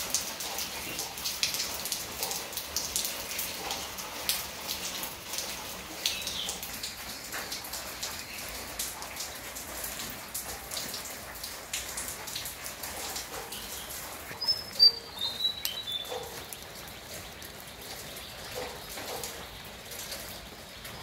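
Rain falling and dripping on leaves and branches, single drops landing as sharp ticks over a steady hiss, thicker in the first half. A few brief high chirps come about two-thirds of the way through.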